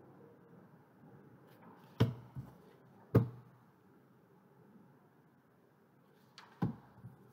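Sharp knocks over faint room noise: a loud one about two seconds in, a lighter one just after, a second loud one about three seconds in, and a quicker pair of knocks near the end.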